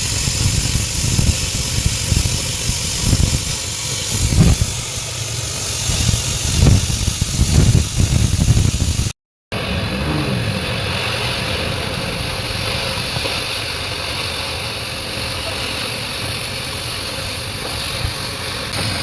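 Stick-welding arc hissing and crackling steadily while a collar is welded onto a bucket pin, over a running engine with uneven low rumbles. The sound cuts out briefly about nine seconds in, then carries on steadier.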